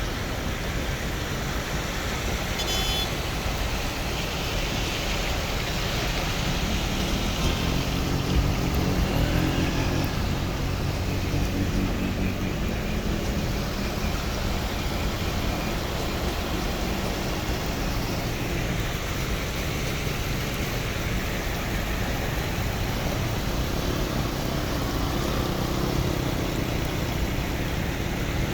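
Floodwater rushing in a steady, continuous noise. A motor vehicle's engine hum rises out of it for a few seconds near the middle.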